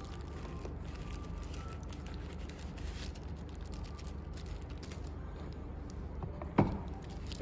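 Plastic bubble wrap rustling and crinkling in the hands as a phone screen is slid into it, over a steady low hum. A single sharp knock about six and a half seconds in.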